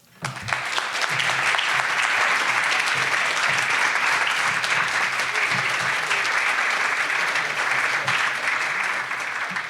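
Audience applauding, a dense, steady clapping that starts right after the speech ends and begins to taper off near the end.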